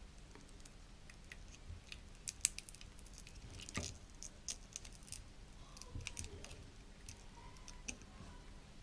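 Faint, scattered clicks and scrapes of a small tool prying at the GoPro Hero 4 Silver's front LCD screen, which is glued down with adhesive.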